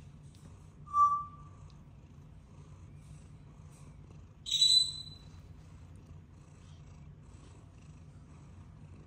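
A cat purring steadily, a low continuous hum. Two short, high-pitched sounds cut in over it: a brief tone about a second in, and a louder, shriller one about four and a half seconds in.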